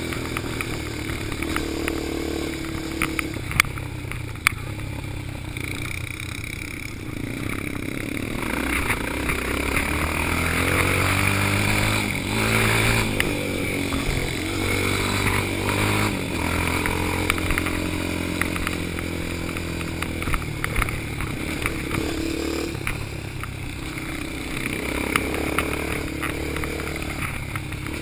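Yamaha Raptor quad's single-cylinder engine running hard while riding, its pitch rising and falling again and again with throttle and gear changes. Occasional sharp knocks and rattles come from the quad working over the rutted dirt track.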